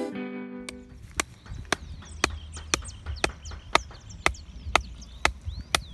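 A wooden stake being hammered into the ground with steady blows, about two a second, while birds chirp.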